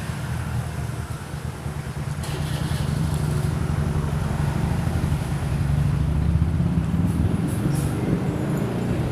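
Road vehicle running in motion, a steady low rumble with wind buffeting the microphone.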